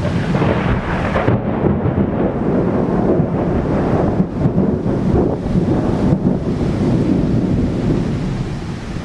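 Torrential rain pouring down in a sudden summer cloudburst: a dense, steady rush of noise with a low rumble in it.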